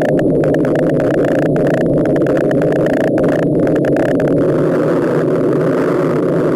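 Steady radio static from an SDR dongle receiver tuned to the 28 MHz band: an even hiss squeezed into a narrow audio passband, with no Morse tones keyed.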